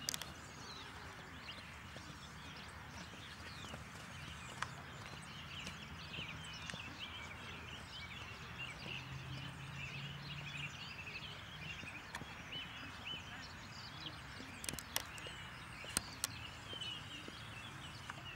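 Birds chirping and calling, many at once, with a few scattered sharp knocks.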